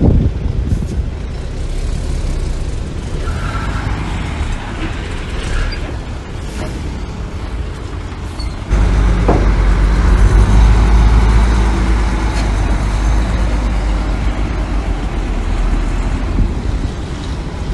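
Heavy diesel earthmoving machinery running with a deep, loud rumble that suddenly gets much louder about halfway through and stays heavy for several seconds before easing slightly.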